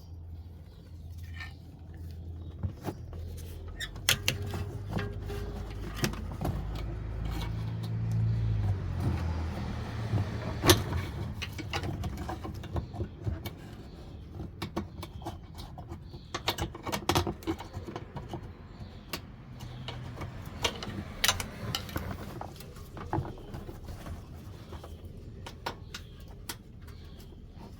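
Scattered metal clicks, taps and knocks of hand tools working on a car's rear air-suspension parts, over a low steady hum. A louder low rumble swells and fades about eight to ten seconds in.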